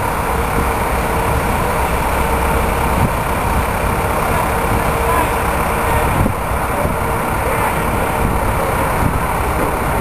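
Construction-site noise: an engine running steadily, holding one constant pitch, over a low rumble.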